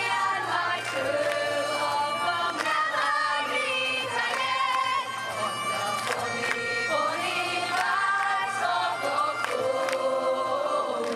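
A group of singers performing a song together, several voices singing at once with held, wavering notes.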